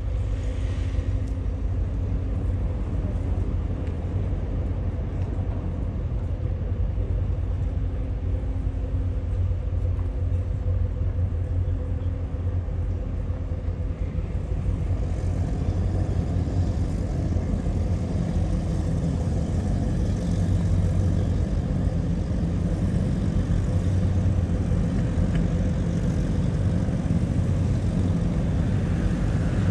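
Boat engines rumbling low and steady, with a second engine sound building from about halfway through and growing louder near the end as a Cigarette go-fast powerboat runs past.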